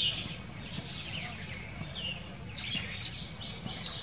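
Small birds chirping in short high calls, with a quick run of repeated notes about three seconds in, over a steady low background hum.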